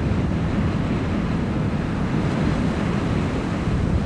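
Strong wind rushing steadily, with a low roar.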